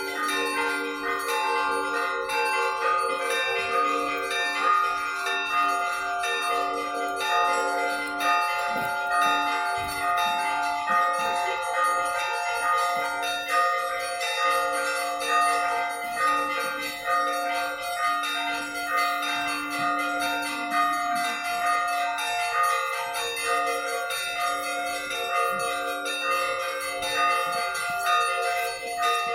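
Russian Orthodox church bells ringing a festive peal for a feast day: many bells of different pitches struck in quick succession, their tones ringing on and overlapping.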